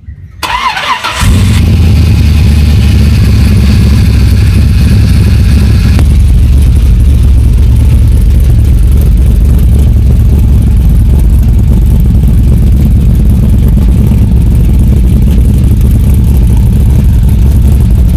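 A square-body Chevrolet Blazer's engine is cranked by the starter and fires up about a second in. It then runs loud and steady at idle.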